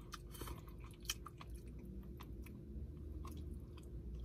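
Quiet chewing by a man eating meat off the bone: scattered small wet clicks and smacks of mouth and food over a faint, steady low hum.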